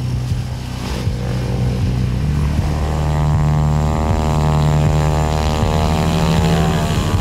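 Propeller-driven light aircraft engine running on the ground with the propeller turning, a steady drone.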